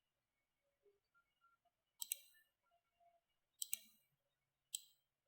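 Computer mouse clicking over near silence: a quick double click about two seconds in, another about a second and a half later, then a single click near the end.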